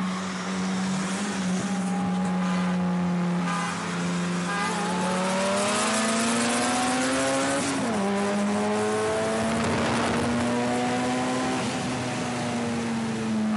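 Car engine held at high revs under hard acceleration in a motorway race between a turbo Honda Integra and a Ferrari 355. Its pitch climbs slowly, drops sharply at a gear change about eight seconds in, then climbs again, with wind noise over it.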